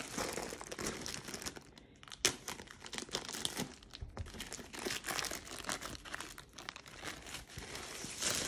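Clear plastic wrap crinkling and tearing as it is peeled off a long cardboard canvas box, in irregular crackles with one sharper snap about two seconds in.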